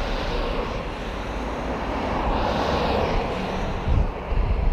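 Road traffic heard from a moving bicycle: a motor vehicle passes, swelling about halfway through, over steady wind noise on the microphone that gusts into low rumbles near the end.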